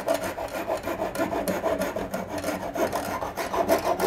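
A bare hacksaw blade, held in the hand, sawing off wooden golf tees flush with the cabinet panel in quick, even back-and-forth strokes.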